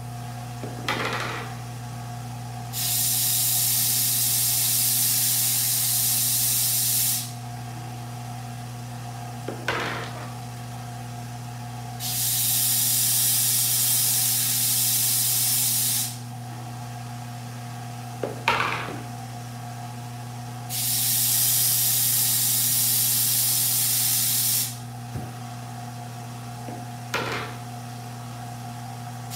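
A belt sander with an 80-grit belt runs with a steady motor hum. A golf shaft tip is pressed to the belt three times, each pass a loud grinding hiss of about four seconds that sands off residual epoxy. A short knock comes between passes.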